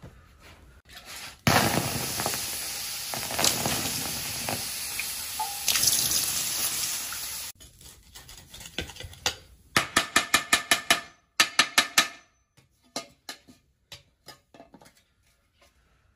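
Water poured onto a freshly cast aluminium basin still hot in its earthen mould, hissing for about six seconds and stopping suddenly. A few seconds later comes a run of quick scraping and tapping strokes as a knife clears the mould earth off the casting.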